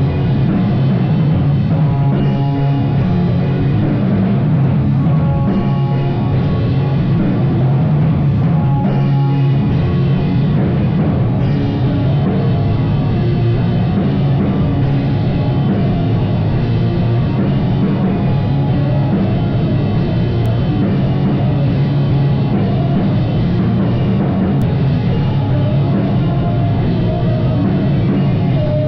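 A live rock band playing loudly, with a drum kit under a dense, unbroken wall of instruments.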